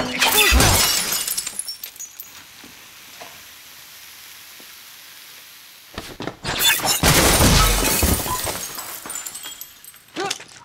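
Glass shattering and crashing: a loud burst at the start, then a quieter stretch, then a longer run of smashing and impacts from about six seconds in.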